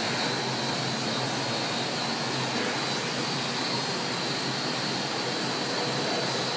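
Rotary label die-cutting and slitting machine running steadily: an even mechanical noise with a thin, steady high whine over it.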